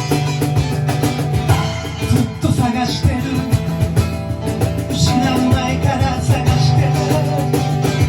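Live band playing a song: strummed guitar over a steady beat.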